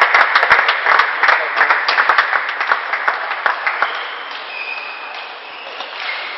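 Small crowd of spectators applauding, the clapping thinning and fading out about two-thirds of the way through.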